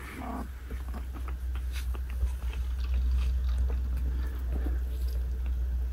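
Newborn sand cat kittens suckling at their mother: a quick, irregular run of small wet sucking and smacking clicks, like a baby sucking from a bottle, over a steady low hum.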